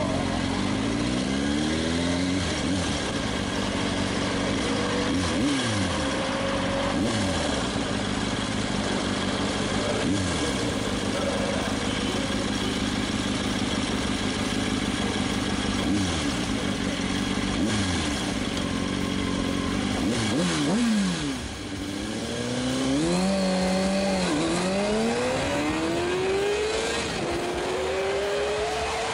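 Kawasaki ZX-6R 636 inline-four sport-bike engine running at low revs with a few throttle blips, then, about twenty seconds in, launching at full throttle and accelerating hard through the gears, its pitch climbing and dropping back at each upshift.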